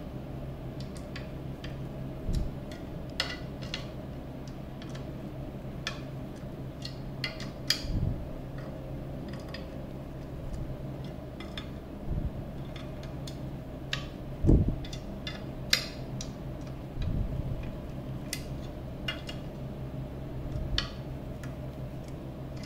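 Screwdriver driving small screws into brass standoffs on a chassis plate: scattered light metallic clicks and ticks, with about six duller knocks as the plate is handled, over a steady low hum.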